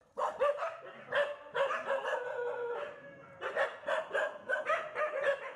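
Dog barking repeatedly in quick, sharp barks.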